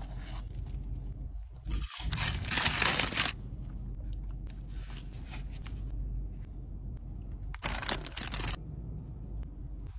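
Paper food wrappers crinkling and tearing as sandwiches are unwrapped, in two louder bursts about two seconds in and near the end, over a steady low hum.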